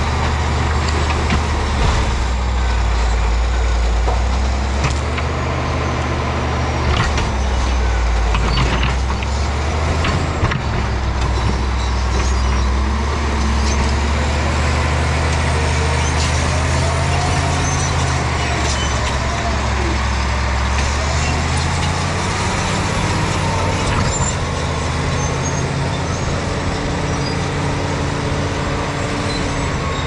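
Caterpillar D7G bulldozer's six-cylinder diesel engine running hard under load as the dozer pushes earth and rock, with scattered knocks and clanks from the steel tracks and stones. The engine note shifts a little after twenty seconds in.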